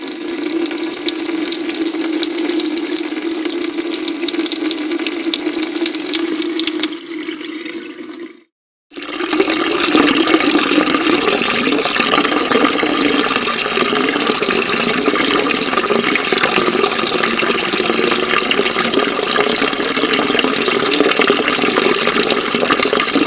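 Two separate recordings of steadily running water: the first fades out about eight seconds in, and after a brief silence a second, louder and more churning stream of water starts and runs on.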